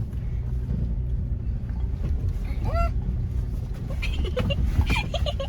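Toyota 4Runner's engine and drivetrain rumbling low and steady, heard from inside the cabin while crawling a rough off-road trail. A short rising voice exclamation comes about three seconds in, with brief voice sounds near the end.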